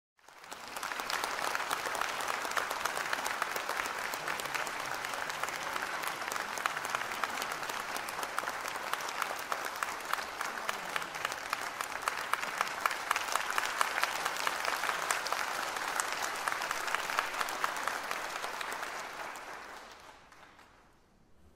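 Audience applauding, a dense steady clapping that dies away about twenty seconds in.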